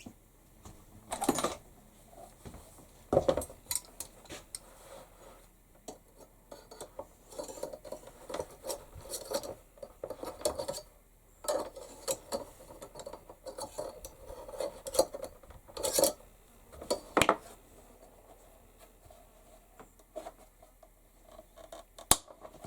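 Small metal tools and rivet parts clinking and knocking against a workbench while a leather pouch is being riveted, in scattered, irregular handling sounds with a few sharper knocks.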